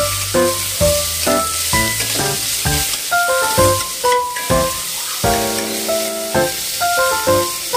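Chopped vegetables sizzling hard in hot oil in a stainless steel pan on high flame as a spatula stirs them. Background music with a steady run of short notes plays over it.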